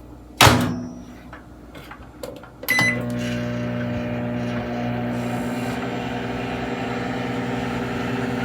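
A thud, a few small clicks and a short beep, then a microwave oven running with a steady hum while it softens a stick of butter.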